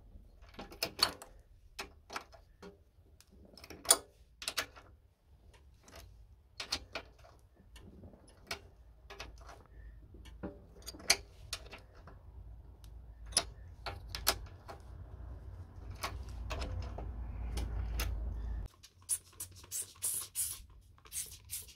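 Irregular metal clicks and knocks of a socket wrench tightening the cylinder head bolts of a lawnmower engine over a new head gasket. A low hum builds in the background and cuts off abruptly about three-quarters of the way through. Near the end come short bursts of hissing compressed air for the leak test on the head gasket.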